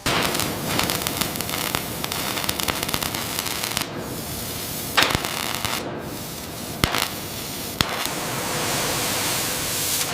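Electric arc welding: a steady crackling hiss, with a few sharp pops about halfway through.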